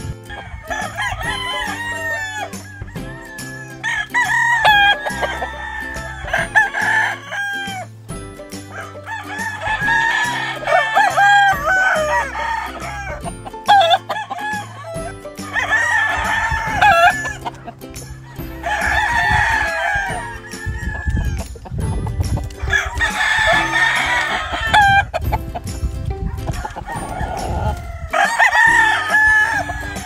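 Roosters crowing again and again, one long crow every few seconds, with some clucking between crows.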